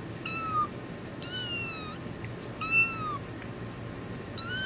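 Young kitten meowing: four short, high-pitched meows, each under a second and falling in pitch at its end, the last one starting near the end.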